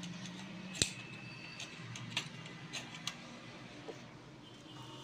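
Tube-like heater lamps being drawn out of the upper roller of a Xerox 5855 heater (fuser) unit and handled: a handful of light clicks and taps, the sharpest about a second in, with a faint high squeak for about a second just after it.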